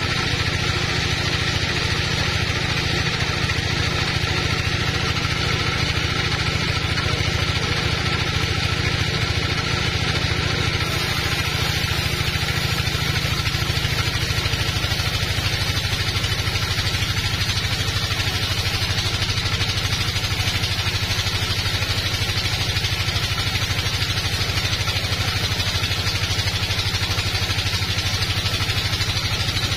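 Sawmill bandsaw cutting lengthwise through a teak log: a steady machine drone with a hiss of the blade in the wood, running without a break.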